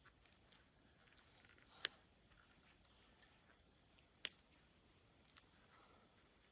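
Near silence with a faint, steady, high-pitched insect drone, broken by two sharp clicks about two and four seconds in.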